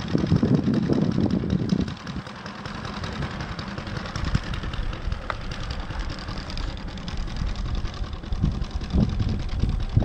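O.S. FS-95V single-cylinder four-stroke glow engine of a large RC model biplane running at idle as the model taxis. It is louder for the first two seconds or so, then drops back to a steadier, quieter run.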